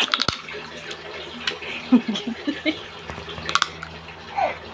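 Close-up eating sounds of a person sucking and biting meat from a piece of cooked crab held to the mouth: wet slurps and smacks, with sharp clicks of lips and shell, a cluster at the start and another about three and a half seconds in.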